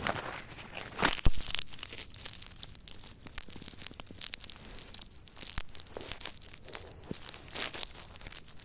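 Irregular crackling and rustling with a sharp knock about a second in, over a steady high hiss.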